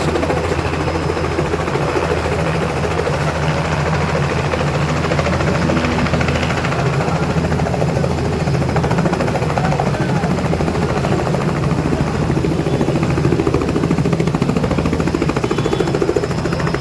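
Helicopter running loud and steady: a rapid, even chop of the rotor blades over a low engine drone.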